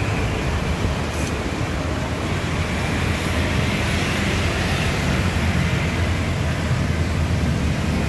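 Honda Vario 150 scooter's single-cylinder engine, bored up with a 59 mm piston, running steadily through a CLD Racing C3 round aftermarket exhaust, a low, even exhaust note.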